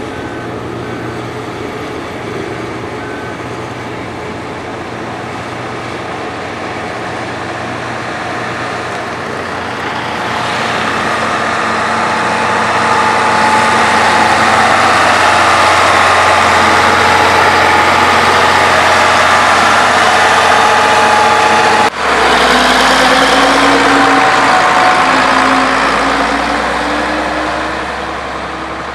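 Heavy road-construction machinery running, its engine sound growing louder over a few seconds as it draws closer. About two-thirds of the way in there is a sudden brief dip, after which engine sound continues with a slowly rising pitch.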